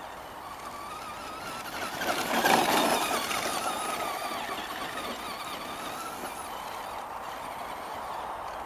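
Traxxas Slash RC truck's brushed electric motor whining at a wavering high pitch. It grows loud and peaks about two and a half seconds in, with a burst of tyre and dirt noise, then fades away gradually.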